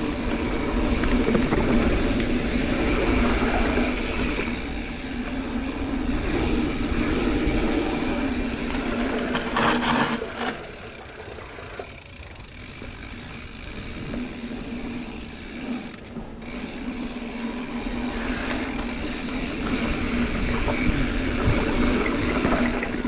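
Mountain bike rolling along a dirt trail: a steady rolling rumble and rattle of the bike, with noise on the camera microphone. It eases off for a few seconds about halfway through, then picks up again.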